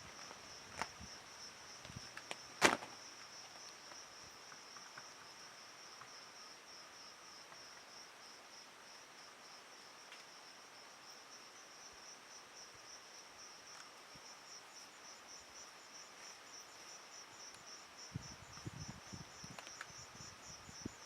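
Night insects chirring steadily in a high, fast-pulsing trill. A sharp click sounds about three seconds in, and irregular soft crackling comes in near the end.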